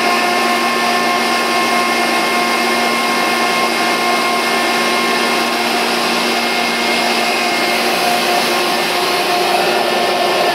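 50 HP Sullivan Palatek rotary screw air compressor, driven by an electric motor, running steadily: a loud, even hum and whine over a hiss.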